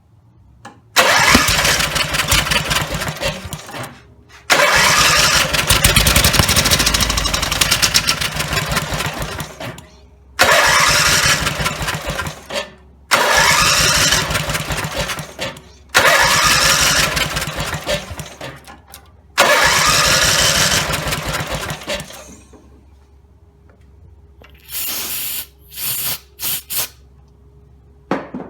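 Briggs and Stratton 17 HP riding-mower engine being cranked over six times in a row, each try starting abruptly and fading out after two to five seconds without the engine staying running: a rebuilt engine that will not start or keep idling. A few short, sharper noises follow near the end.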